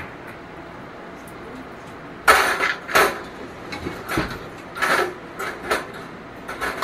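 Wire cooking racks clinking and rattling against the metal pot of an indoor electric smoker as they are set back in: a quiet start, then an irregular run of metallic clanks from about two seconds in.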